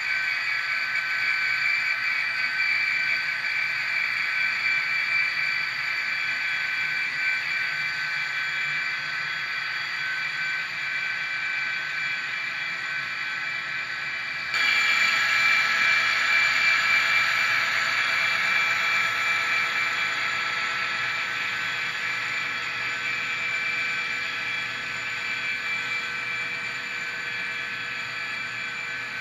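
Diesel locomotive engine sound played by ESU sound decoders in N-scale GP39-2 and SD40-2 model locomotives through their tiny speakers: a steady, thin, high-pitched engine drone as the locomotives pull a freight train. It gets suddenly louder about halfway through, then slowly fades.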